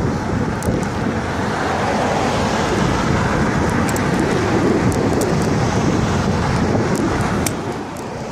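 Wind buffeting a phone's microphone on a moving bicycle: a steady low rush that eases a little near the end.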